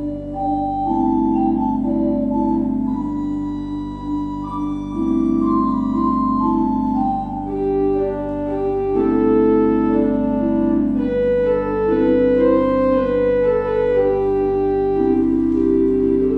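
Church organ playing slow held chords with a melody moving above them.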